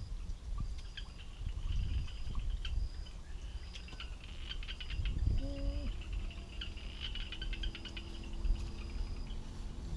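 Field ambience: repeated short, high-pitched chirps from insects and birds, with wind rumbling on the microphone and scattered light clicks.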